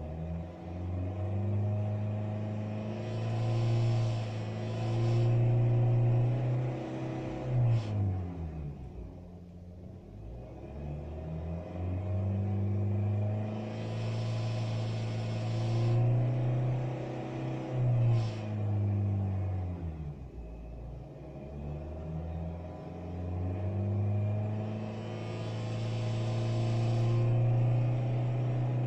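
Honda Fit engine revved up and held three times, each time dropping back to idle. While the revs are held, a high, hissy buzz rises over the engine note. This is the strange noise that comes in at about 3500 rpm and is gone above it.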